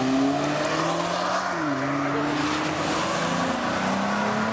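Cars driving past one after another, a Hyundai Genesis Coupe and then a Nissan Maxima, their engines running at moderate revs. One engine note drops about one and a half seconds in, and another rises near the end.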